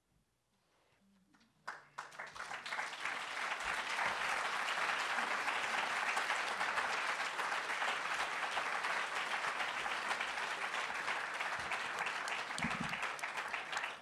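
Audience applauding: it starts about two seconds in after a brief silence, holds steady, and begins to ease off near the end.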